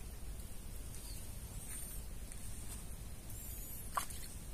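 Outdoor ambience: a steady low rumble with a few faint, high bird chirps, and a single short click near the end.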